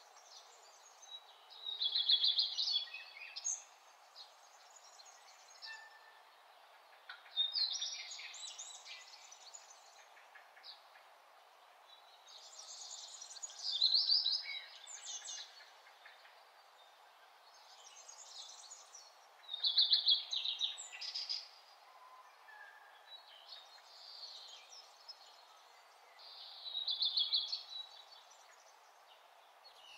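A songbird singing: five short, high, rapid phrases, one about every five to six seconds, over faint steady background noise.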